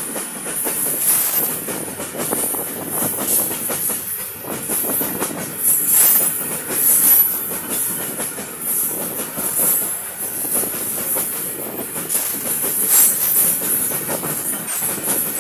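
Long freight train of covered wagons rolling past at speed close by, its wheels clattering irregularly over the rail joints with a constant high hiss over the rumble.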